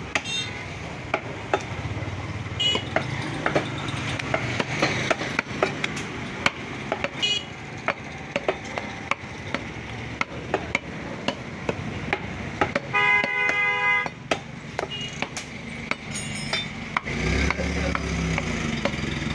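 Butcher's knife chopping and slicing beef on a wooden block, giving frequent sharp knocks over busy market noise. A vehicle horn sounds for about a second a little past halfway, with a few shorter toots at other points.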